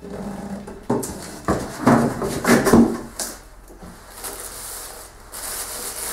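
Packaging rubbing and scraping as a computer monitor is lifted out of its box, with two knocks about a second in and the loudest rubbing a couple of seconds in.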